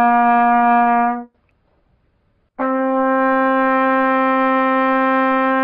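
Trumpet playing long held notes. One note ends about a second in, and after a short pause a slightly higher note starts and is held steady.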